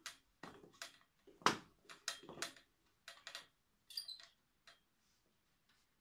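Power cord and plug of a 1954 Vactric R45 upright vacuum cleaner being unwound from the hooks on its handle, knocking against the handle in a run of light, irregular knocks and clicks that stops about five seconds in.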